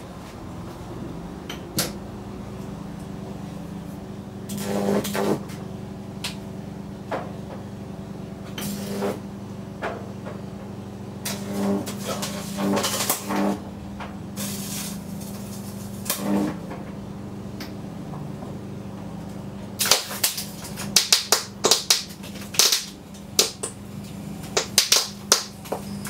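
High-voltage arcing from an unballasted microwave oven transformer into a plasma TV panel: a few short buzzing bursts at first, then from about 20 seconds in a rapid run of loud, sharp snaps and crackles. A steady low electrical hum lies under it all.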